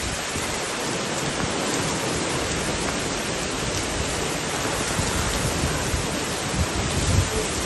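Heavy rain pouring steadily onto wet pavement, a dense even hiss, with a few low thumps near the end.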